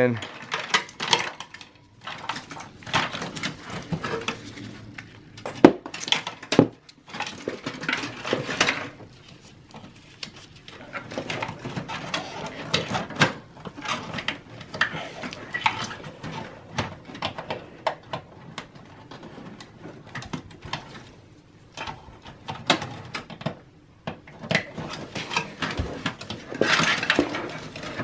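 Power-supply cables being handled and pushed into place inside a steel desktop tower case: rustling and scraping of the wire bundles, with scattered clicks and metallic clinks against the chassis.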